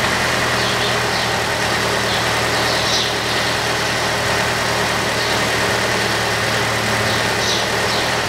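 Mitsubishi Colt's 1.5-litre four-cylinder petrol engine idling steadily with a faint whine, running on freshly changed oil and a new oil filter.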